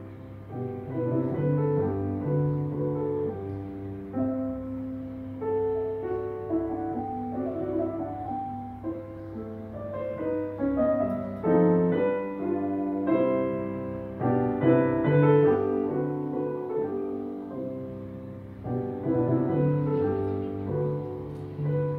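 Steinway grand piano played solo: a classical piece of chords and running notes that grows louder about halfway through, then eases back.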